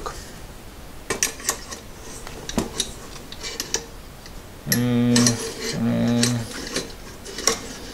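Stainless steel pot clicking and scraping lightly against the aluminium pot supports of a Trangia storm cooker as it is lowered in and settled. The pot is about 2 cm too narrow for the supports and does not sit firmly. Midway a man hums a short "hmm" twice.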